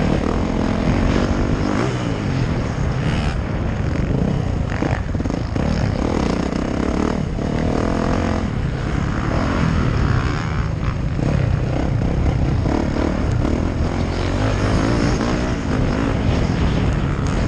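Dirt bike engine revving up and falling off over and over as it rides around a motocross track, heard close from the rider's camera mount, with wind rumbling on the microphone.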